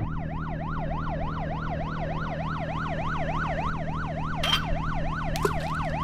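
Police siren in a fast yelp, its pitch rising and falling about four times a second over a steady low hum. Two brief clicks come over it near the end.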